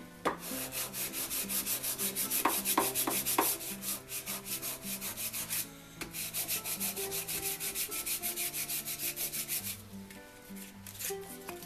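500-grit sandpaper rubbed by hand back and forth along a wooden marking-gauge beam in quick, even strokes, about five a second, lightly cleaning and shining the surface. There is a brief pause about six seconds in, and the strokes are softer near the end.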